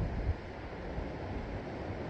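Sea waves washing steadily, mixed with gusts of wind buffeting the microphone as an uneven low rumble.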